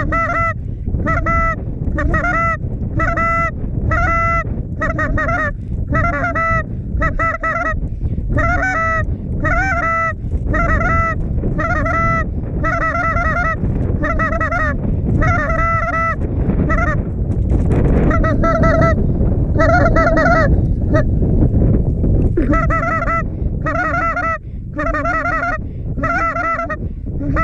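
Goose honks repeated in a steady, even series, about one and a half a second, with a short break about two-thirds of the way in. Steady wind rumble on the microphone underneath.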